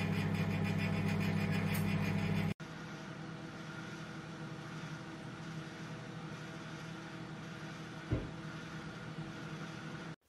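Toshiba 800 W microwave oven running with a steady electrical hum, a microwave that by the owner's account counts down but does not heat or turn its turntable. About two and a half seconds in the hum cuts off abruptly and a quieter steady hum takes over, with a single short knock near the end.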